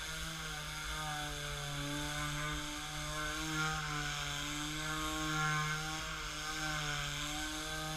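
Black & Decker Mouse detail sander running as it sands a wooden tabletop: a steady motor hum with a rasp of sandpaper on wood, its pitch wavering slightly as it is worked across the surface.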